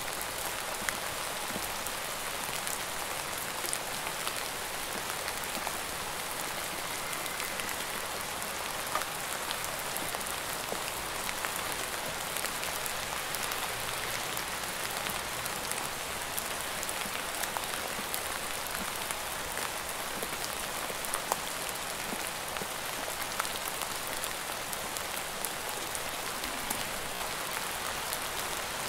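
Steady rain falling: an even hiss of many drops, with scattered sharper drop hits standing out now and then.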